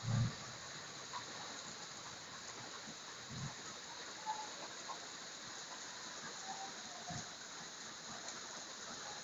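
Steady hiss of rain, with a few soft low thumps.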